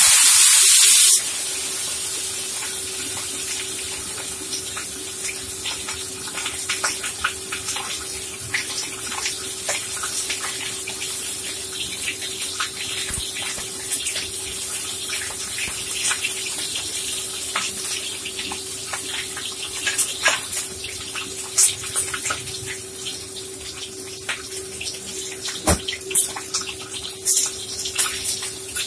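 A whole fish frying in hot oil in a wok: a loud hiss as it hits the oil in the first second, then a steady sizzle with scattered pops and spatters that come more often and sharper over the last third.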